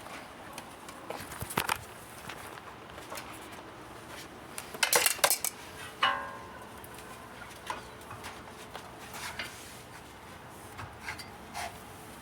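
Metal clinks and clanks of tools and brake parts being handled: scattered light clicks, a quick cluster of sharp clinks about five seconds in, then one metal clank that rings briefly about a second later.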